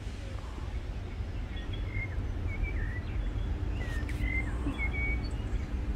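A bird giving a string of short chirps, several in quick succession through the middle of the stretch, over a steady low rumble.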